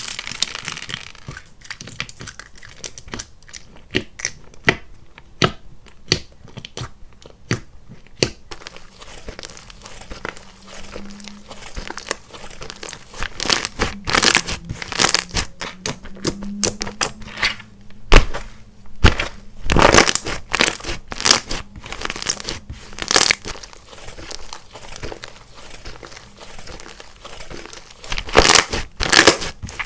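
Clay-mixed slime being stretched, squeezed and pressed by hand, giving irregular crackles, pops and tearing sounds, with denser, louder bursts of popping about halfway through and again near the end.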